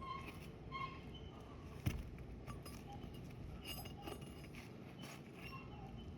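A single sharp tap about two seconds in, with a few faint light clinks and short high chirps over a quiet background.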